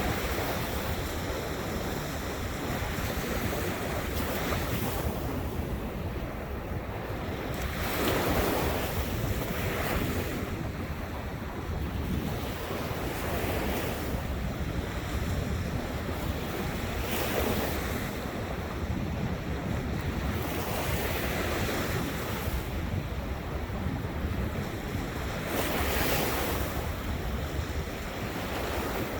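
Ocean surf washing onto a beach, the waves swelling and breaking every few seconds, with wind rumbling on the microphone.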